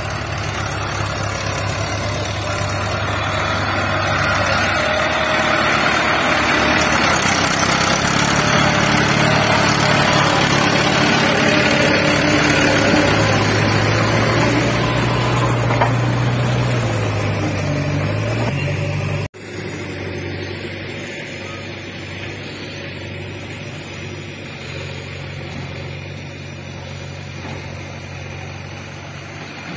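Diesel farm tractor engine running under load, growing louder as it comes close, its pitch rising and falling briefly a little before the sound cuts off abruptly. After the cut it runs on more faintly and steadily while the tipper trailer unloads soil.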